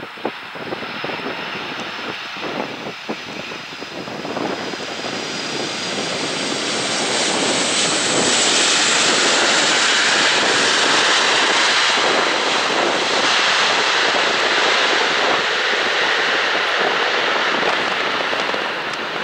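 Boeing 747-400 landing and rolling out on the runway, its four jet engines making a broad, steady jet noise. The noise builds over the first several seconds and stays loud as the aircraft passes.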